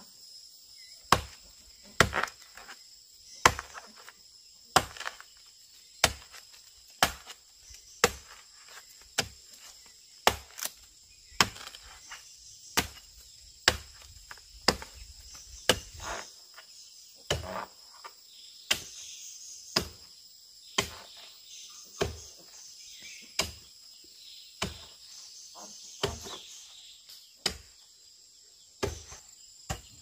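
Repeated chopping strikes, about one a second, each a sharp single blow, over a steady high drone of insects.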